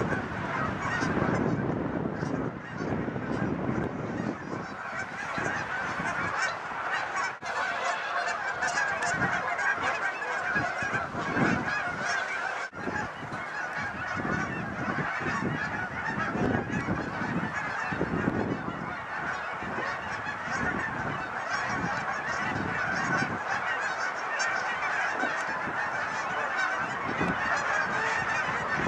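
A large flock of geese flying overhead, honking continuously with many calls overlapping.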